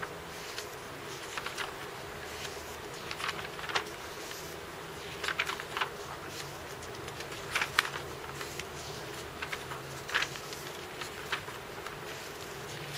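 Paper pages of a hardbound sketchbook turned by hand, with short rustles and flicks every second or two, the loudest about halfway through and again near ten seconds in. A steady low hum runs underneath.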